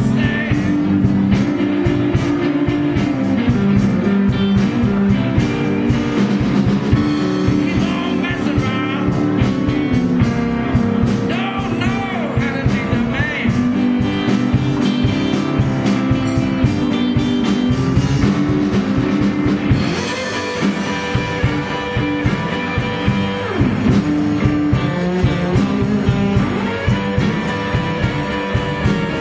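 Live blues band playing: electric guitars, bass guitar, keyboards and drums.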